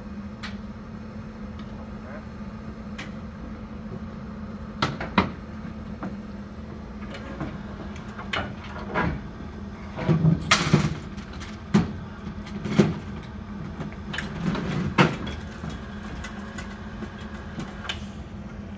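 Irregular metal clanks and knocks as aluminium chequer-plate floor panels of a Waltzer ride are handled and fitted into place, the loudest bunched in the middle, over a steady low hum.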